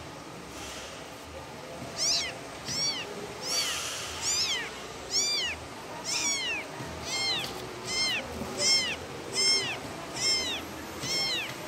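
Very young kittens mewing for their mother: high-pitched calls that rise and fall, about one a second, starting about two seconds in.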